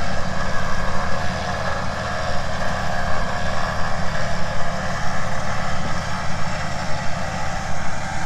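Electric winch running steadily as it spools its synthetic rope back in through a pulley block, with a continuous motor and gear whine over a low rumble.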